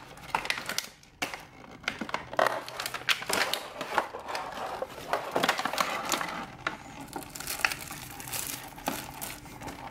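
Clear plastic blister packaging and plastic bags crinkling and crackling as they are handled and pulled out, in a dense run of irregular crackles.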